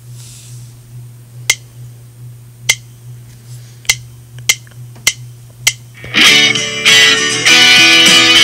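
A count-in of six sharp clicks, three slow and then three twice as fast, over a low steady hum. The song's backing music with strummed guitar then comes in about six seconds in.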